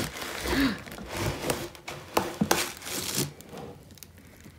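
Cardboard shipping box and shrink-wrapped boxed set rustling and scraping as the set is pulled out of the box onto a wooden table, with sharp clicks and knocks, for about three seconds; quieter handling after that.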